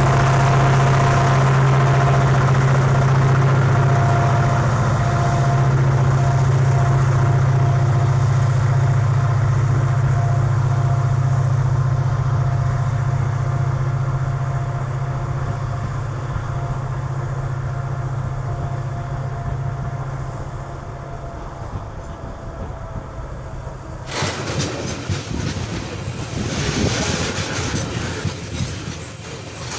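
Loaded coal train hauled by two diesel-electric locomotives: a deep, steady engine drone with a faint tone above it, fading over the first twenty seconds as the full hopper wagons roll past. About 24 seconds in the sound cuts to close beside the passing wagons: wheels rumbling and clattering on the rails.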